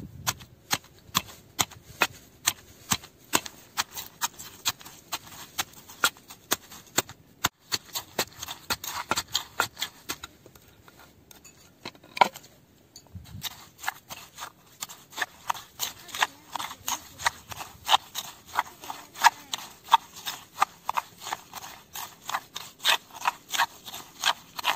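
Wooden pestle pounding chillies and garlic in a stone mortar: a sharp knock about two or three times a second, with a spoon scraping against the stone. The pounding pauses briefly a little before the middle, then picks up again.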